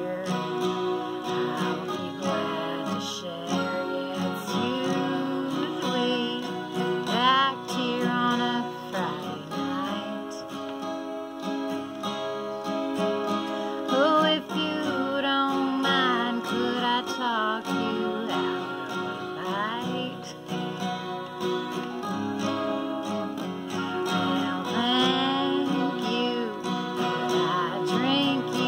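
A capoed acoustic guitar strummed steadily while a woman sings along in phrases, the melody sitting a little low in her range.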